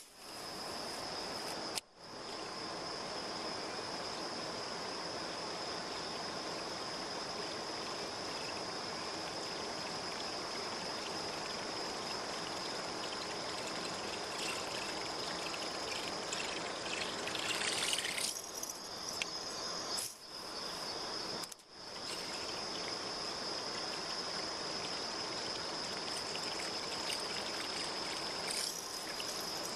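Steady high insect chirring over a constant watery hiss, with splashing at the pond surface, loudest about eighteen seconds in and again briefly near the end.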